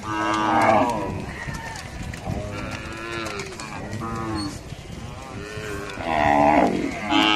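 Herd of humped zebu-type cattle mooing: a loud, long moo about half a second in and another about six seconds in, with many shorter, lower moos from other cows overlapping between them.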